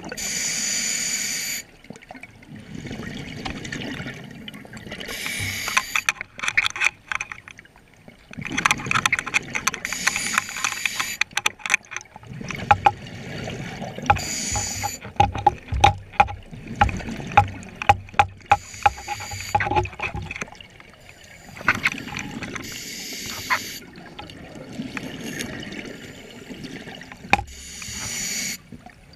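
Scuba regulator breathing underwater: a loud bubbling rush of exhaled bubbles lasting about a second, five times at intervals of several seconds, with quieter inhaling hiss and rapid clicking in between.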